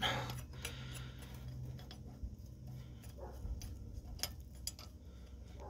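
Faint, irregular light clicks and ticks of flywheel bolts and tools being handled, over a low steady hum that fades about three seconds in.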